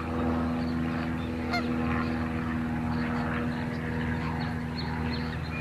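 A steady low engine-like hum, with many short, high bird calls scattered over it.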